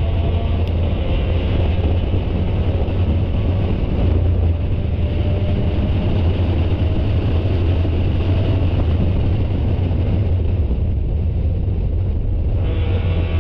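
Spec Miata race car's four-cylinder engine running hard at racing speed, heard from inside the car with wind noise. Its higher tones dip for a couple of seconds near the end, then come back.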